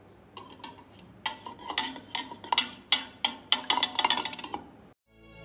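Metal spoon stirring a drink in a cup, clinking repeatedly against the sides: a few scattered taps at first, then a quick run of about three or four clinks a second that stops shortly before the end.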